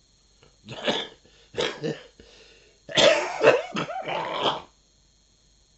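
A man coughing: two short coughs in the first two seconds, then a harder run of coughs from about three seconds in until nearly five seconds.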